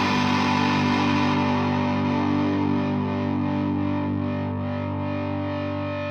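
Electric guitar played through a Gourd Tech Flum Dilly distortion and boost pedal: a distorted chord struck just before and left to ring, fading slowly.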